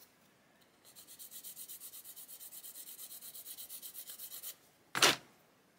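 A small Fischkopp 1/32 Merlin camshaft part being rubbed back and forth on a sanding stick, at about six quick, hissy strokes a second, to take a little more off its front end so it sits further forward. One short, louder noise comes near the end.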